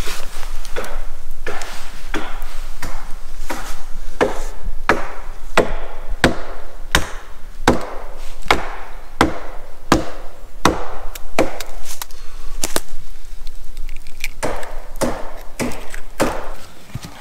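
Wood being chopped: a steady run of sharp strikes, about one and a half a second, with a short break about thirteen seconds in.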